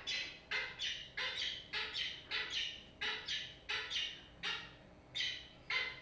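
Peregrine falcon courtship vocalizations: a string of short, repeated calls, about three a second, spacing out toward the end.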